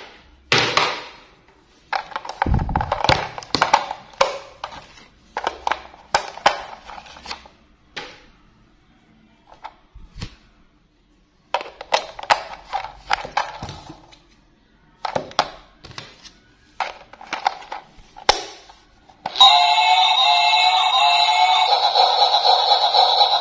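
AA batteries clicking and knocking into the plastic battery compartment of a battery-operated toy Thomas the Tank Engine, then the cover snapped shut. About 19 seconds in, the toy switches on and plays an electronic tune, loud and continuous.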